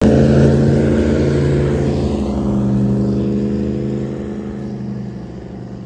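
Airboat's engine and big air propeller running at speed as it passes, loud at first and fading steadily as it moves away.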